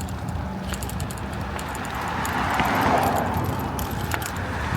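Low road and wind rumble from riding a small electric bike, with scattered faint rattles; a rushing noise swells to a peak about three seconds in and fades, a car passing.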